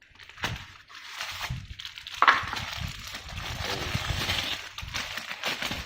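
Packaging rustling and crinkling as the vacuum cleaner's tube is unwrapped, with scattered clicks and knocks and one sharper crack about two seconds in.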